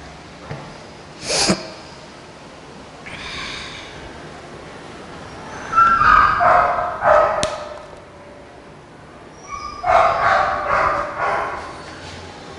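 A dog barking in two short bursts of several barks, about six seconds and about ten seconds in, with a single sharp click a little over a second in.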